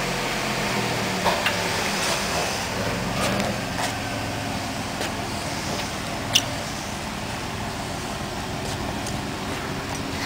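Chrysler Town & Country minivan's V6 idling steadily through a homemade Coca-Cola can exhaust tip, with a sharp click a little past halfway.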